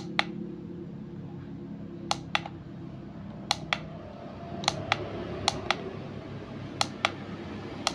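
Plastic push-buttons on a handheld electric TENS massage unit clicking as they are pressed, in close pairs about five times from about two seconds in, stepping through the timer setting.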